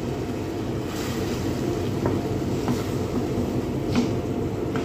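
Steady low kitchen rumble, with a few light knocks of a wooden spatula against a cooking pot, the sharpest about four seconds in.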